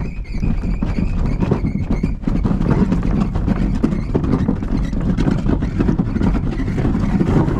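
A kayak being moved over a gravel path and shingle: dense, close crunching and rattling of stones under it, louder from about two seconds in. A steady high-pitched squeal runs through the first two seconds.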